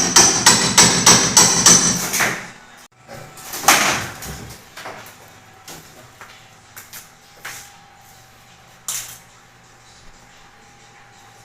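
A quick, even run of hammer blows, about three a second, stopping after about two seconds; then one heavier knock about four seconds in and a few light taps.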